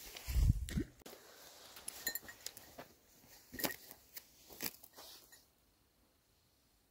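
Faint rustling with scattered sharp clicks and knocks, and a low bump on the microphone about half a second in; it dies away to low background noise near the end.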